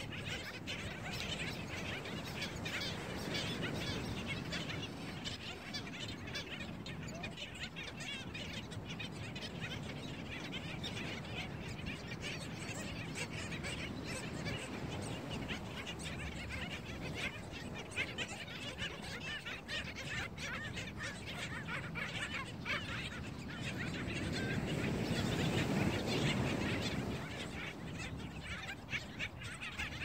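A black skimmer colony calling: many short calls overlapping in a continuous chatter. For a few seconds near the end, a low rumble swells up under the calls.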